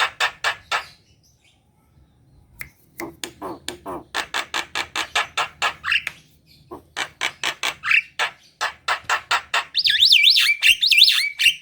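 Javan myna singing vigorously: runs of rapid harsh chattering notes, about five a second, in three bursts with short pauses. Near the end it switches to a loud warbling whistle that wavers up and down in pitch.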